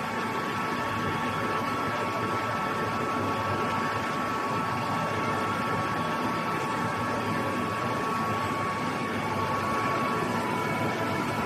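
Automatic TIG pipe circular-seam welder at work: the arc and the machine running as an even hiss with a few thin, steady whining tones, one of which drops slightly in pitch near the end.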